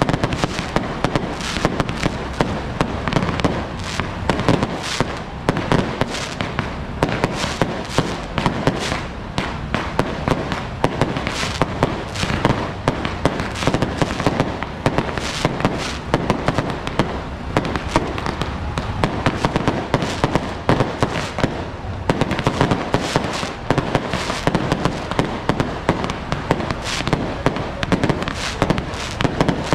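Strings of firecrackers going off without a break, a dense rapid crackle of sharp bangs.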